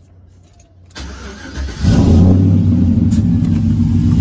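Pickup truck engine cranked by the starter and catching about two seconds in, then running at a steady, loud idle through a 3-inch Magnaflow bullet muffler.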